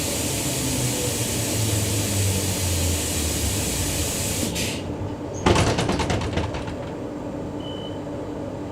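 Steady running noise inside a Queensland Rail EMU electric train; the high hiss stops a little past halfway. Then comes a sudden rattling clatter of about a second as the carriage's sliding doors open at a station stop.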